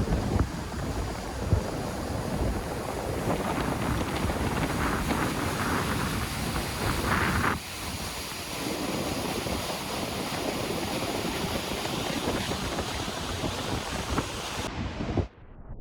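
Steady rushing roar of a large mountain waterfall, with wind on the microphone. The sound shifts abruptly about halfway through and cuts off just before the end.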